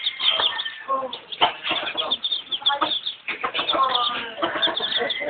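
Chicks peeping continuously in many quick, high chirps, with a mother hen clucking lower among them.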